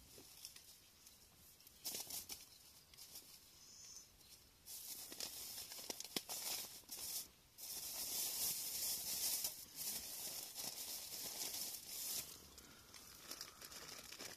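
Plastic packaging crinkling and rustling in the hands in uneven bursts, with sounds of tearing.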